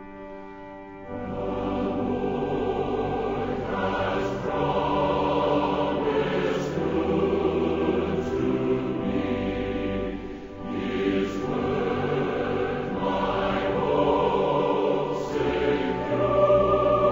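Slow choral music: a choir singing. It swells from soft held notes to full strength about a second in.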